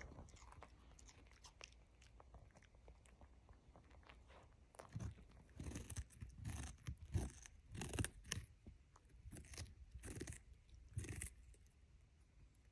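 An Alaskan Klee Kai dog chewing and crunching on something hard. The crunches come in an irregular run from about five seconds in until near the end, with only faint chewing before.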